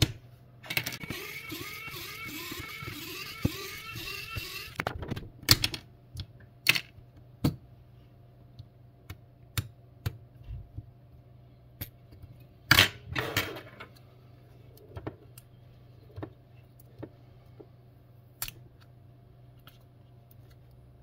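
Clicks, taps and light clatter of small plastic and metal smartphone parts and tools being handled and set down during disassembly, with a stretch of scraping and rattling in the first few seconds and a sharp click about two-thirds of the way through.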